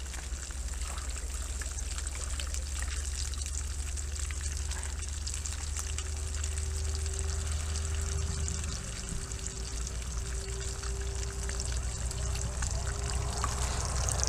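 Fish frying in a pan on a camping gas burner: a steady sizzle over the low roar of the flame. A faint steady hum joins about four seconds in.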